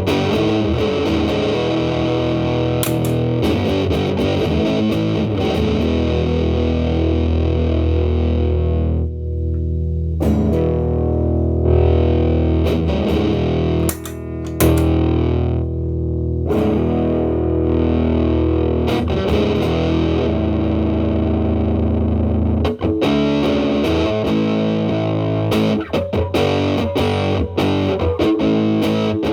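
Electric guitar played through a Big Muff Pi fuzz pedal into an amp's clean channel: thick, sustaining distorted chords and riffs, with a few short breaks between phrases.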